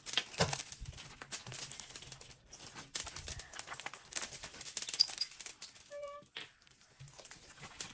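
Rapid small clicks and crackles from slime being worked by hand, together with small plastic decorations rattling. A brief pitched tone sounds about six seconds in.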